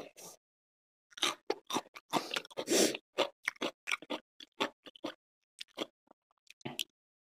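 A person chewing and lip-smacking close to a microphone: a run of short, wet smacks and clicks, thickest and loudest a couple of seconds in.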